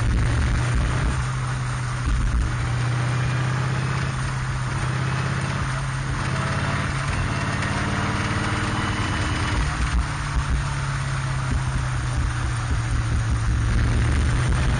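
Cheetah race car's V8 engine heard from the open cockpit, running steadily on a wet track, its revs rising and falling gently. A steady hiss of tyre spray and wind runs over it.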